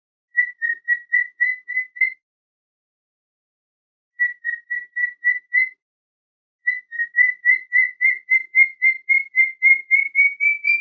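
Cockatiel chirping: short, clear whistled chirps at about four a second, in three runs separated by pauses of about two seconds. The last and longest run rises slowly in pitch.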